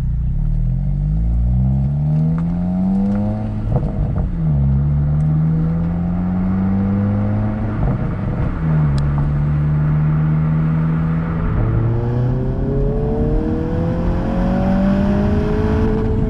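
2022 Honda Civic Si's L15B7 1.5-litre turbocharged four-cylinder pulling through the gears. The revs climb, fall sharply at upshifts about four and nine seconds in, hold steady for a while, then climb slowly again near the end.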